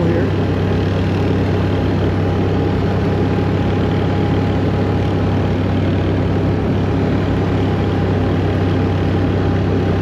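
ATV engine running at a steady pitch while the machine rides along a trail.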